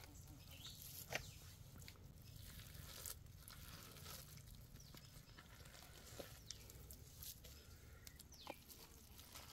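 Near silence: hands scooping through damp fermented rice-and-jaggery mixture in a pit lined with banana leaves, giving only faint rustles and a few soft clicks, the sharpest about a second in, over a low background rumble.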